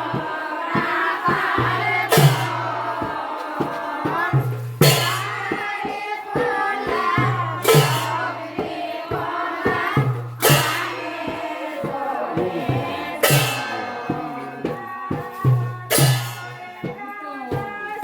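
Dhamail folk song: a group singing together over a steady percussion beat, with a loud sharp crash about every two and a half to three seconds.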